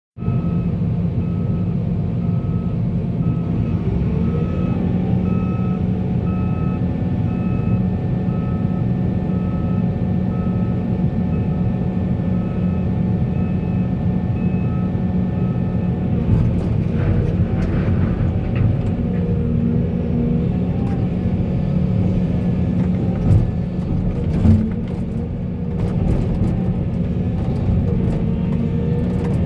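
Heavy diesel earthmoving machinery running steadily, with a reversing alarm beeping about once a second for the first half. In the second half, scattered knocks and clatter come in, as stones are loaded into a dump truck.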